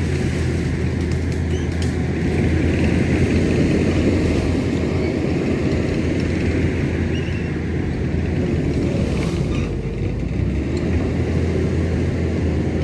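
Diesel engine of a tracked skid steer running steadily at a constant speed.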